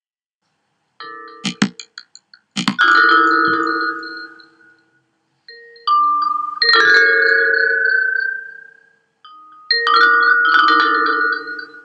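Music of struck, bell-like mallet tones, starting about a second in and coming in three clusters that each ring out and fade over a few seconds.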